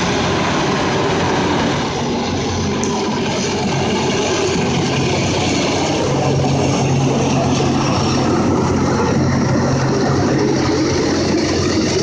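Loram rail grinding train working along the track: a loud, steady hiss of grinding stones on the rail over the hum of its diesel engines, the low hum growing stronger about halfway through.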